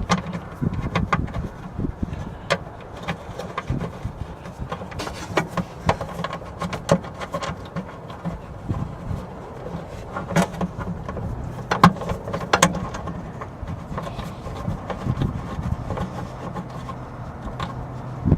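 Scattered small clicks and knocks of handling, fingers working a nut down onto a battery cable terminal stud and the cable lugs shifting; the sharpest knock comes about twelve seconds in. A faint steady low hum sits under the second half.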